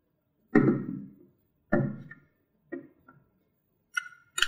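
About six sharp knocks and clanks, spaced unevenly, as a fanless mini PC's ribbed metal case is handled and set down while its bottom panel is opened; the last two ring briefly like struck metal.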